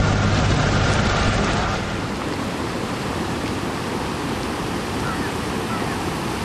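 A vehicle's engine hums steadily as it drives in the rain. About a second and a half in, this gives way to the steady, even rush of a muddy river in flood, pouring across a sandy bed.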